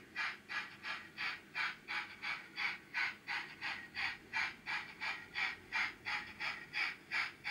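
Sound-fitted 00 gauge model steam locomotive's speaker playing a steady exhaust chuff as the loco runs slowly, about four hissy chuffs a second.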